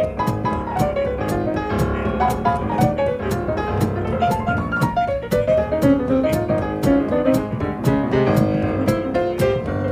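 Jazz piano trio playing an up-tempo swing tune: piano lines over a walking double bass, with the drums keeping a steady cymbal beat of about three strokes a second.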